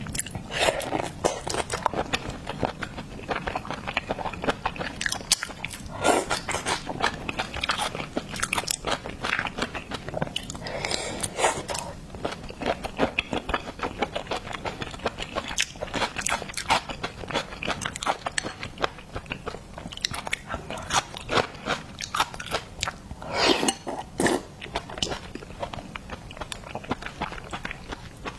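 Close-miked eating of seafood: biting, crunching and chewing as a dense run of sharp crackly clicks, with louder crunches about 6, 11 and 23 seconds in.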